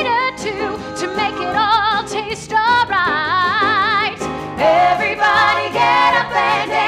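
Women singing a 1960s-style pop number with band backing, holding long notes with a wide vibrato.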